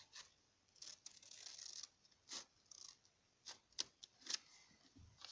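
Faint rustling and a few light clicks from a sheet of paper being moved and handled.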